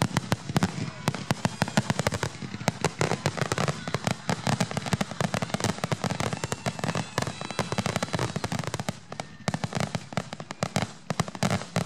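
Aerial fireworks shells bursting in a rapid barrage: many sharp reports a second, overlapping with crackling, with no break.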